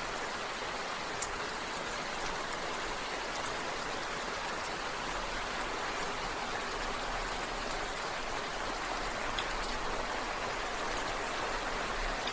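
Steady rain falling: an even, continuous hiss with a few faint drop ticks.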